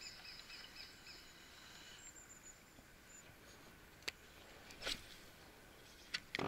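Faint background with a bird chirping in a quick series, about four chirps a second, fading out about a second in; then a few scattered sharp clicks, the loudest near the end.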